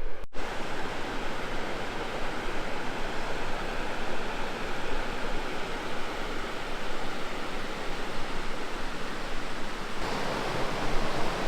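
A river running full, a steady rush of flowing water that cuts out for an instant just after the start.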